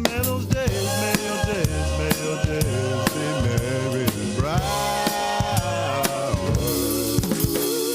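Music: a song with a drum kit beat of kick and snare under a gliding melody line.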